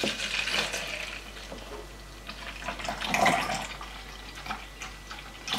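Milk pouring in a steady stream into a plastic shaker cup, the liquid splashing and filling the cup, swelling briefly about three seconds in.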